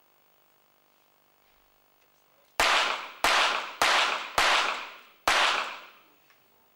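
A five-shot rapid fire pistol series from a .22 Short target pistol: five sharp shots in under three seconds, each with a short echo, the last after a slightly longer gap. That last shot came too late for the 4-second limit, was called overtime and scored as a miss.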